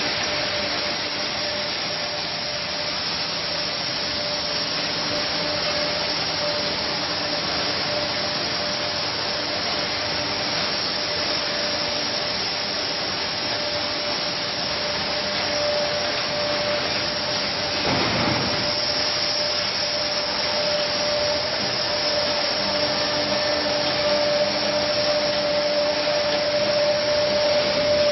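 Bottling-line machinery running: a chain conveyor and a pressure ring-lifting capping machine give a steady mechanical running noise with a constant whine. There is a brief louder rush about two-thirds of the way through.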